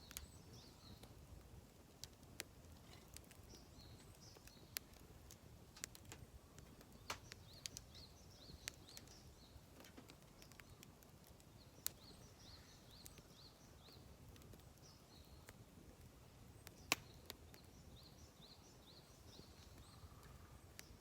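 Faint small birds chirping in short repeated phrases, with scattered sharp pops and snaps from a wood campfire crackling.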